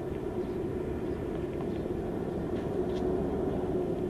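An engine running steadily: a low, even drone with a constant hum.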